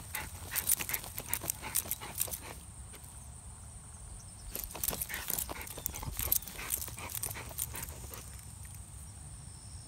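Dog digging into a rodent hole with its nose in the dirt: rapid scratching and scraping of earth mixed with snuffling. It comes in two busy runs, at the start and again from about four and a half seconds in, with sparser scrapes in between and after.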